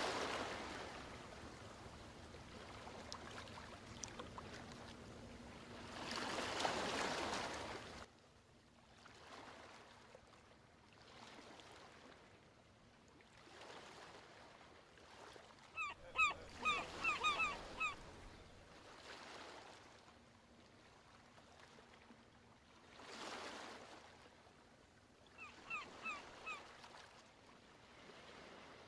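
Ocean waves washing onto a beach, swelling and ebbing every few seconds. Clusters of short bird calls come in about sixteen seconds in and again near the end.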